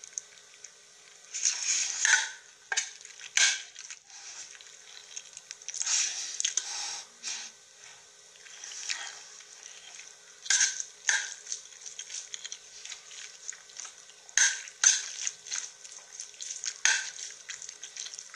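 Noodles being slurped from a plate, with a metal spoon scraping and clinking against the ceramic plate, in short irregular bursts every second or two.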